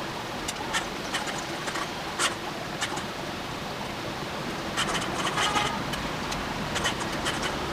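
Scattered small clicks and scrapes over a steady hiss, grouped in short clusters about five and seven seconds in.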